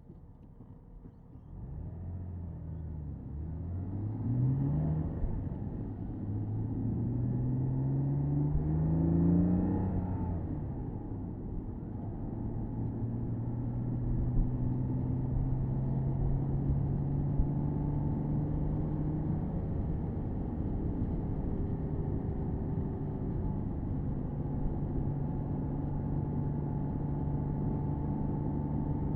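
Porsche Boxster S 987.2's flat-six engine pulling away from near standstill: revs rise in first gear, drop at an upshift, rise again in second, and after another shift it settles into a steady cruise with revs creeping slowly up. Heard from the cabin.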